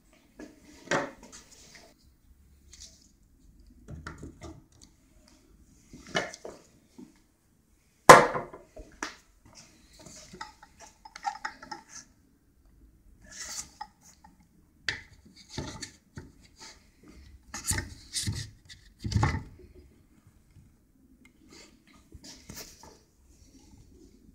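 Handling noises of a circular saw and a homemade MDF-and-aluminium saw track being set up: scattered knocks, clicks and scrapes of metal and wood. The loudest is a single sharp knock about eight seconds in, with a run of knocks later on.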